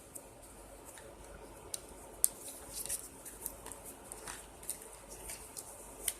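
Plastic packaging being handled as a crochet hook is worked out of it: scattered crinkles and sharp clicks, with a louder snap about two seconds in.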